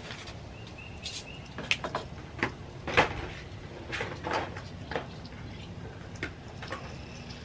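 Metal kitchen tongs clicking and knocking against a bowl and dishes while fried fish is handled: a dozen or so short, sharp clicks scattered irregularly, the loudest about three seconds in.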